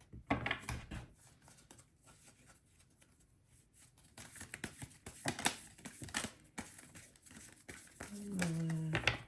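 Tarot or oracle cards being shuffled and handled: papery flicks, slides and taps of the cards in quick irregular bursts. A short hummed 'mm' voice sound comes near the end.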